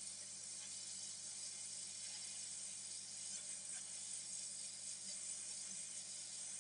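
Hot air rework station blowing a steady, even hiss onto a laptop motherboard, heating a MOSFET so it can be desoldered and lifted off with tweezers.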